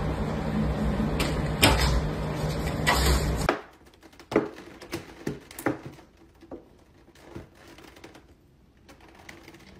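A cat scrabbling at and hanging from a lever door handle: loud handling noise with several knocks and rattles against the door. After a cut about three and a half seconds in, a thin plastic cupcake container crackles and clicks on and off as a cat stands on its lid and presses it in.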